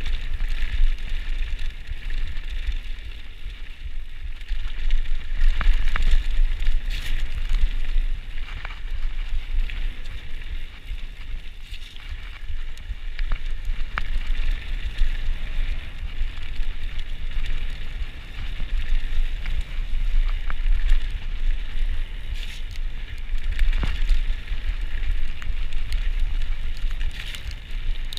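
Cube Stereo full-suspension mountain bike riding fast down a dirt singletrack: steady tyre noise over dirt and stones under heavy wind buffeting on the microphone, with the bike rattling and a scattering of sharp knocks as it hits bumps.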